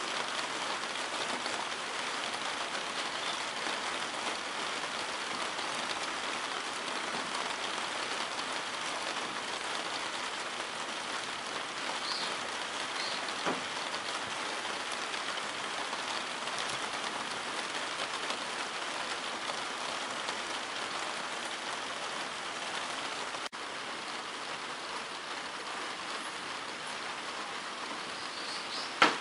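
Light, steady rain falling, an even hiss of many small drops. A single sharp tap comes just before the end.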